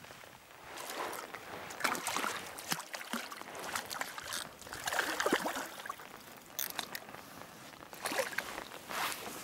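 Rain falling by a lake at night, with irregular splashing and rustling at the water's edge and in wet grass, loudest in short bursts about two, five and eight seconds in.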